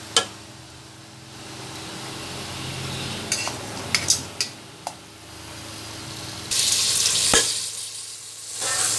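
Marinated chicken wings being set into a stainless steel pressure cooker pot, with a few sharp clicks and knocks against the metal; about two-thirds of the way through the hot oil starts sizzling loudly as the chicken fries, briefly dropping away and coming back near the end.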